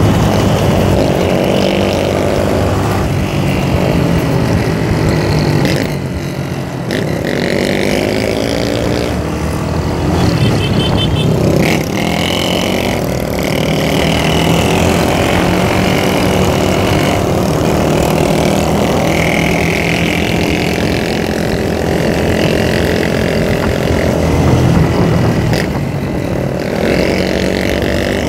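Motorcycle engine running under way, with wind rushing over the microphone. The engine pitch drops briefly about six seconds in, then climbs again as it accelerates.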